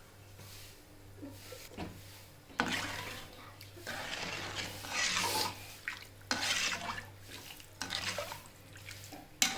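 Liquid splashing and swirling in a pot of rasam, in several noisy bursts, the first starting suddenly about two and a half seconds in.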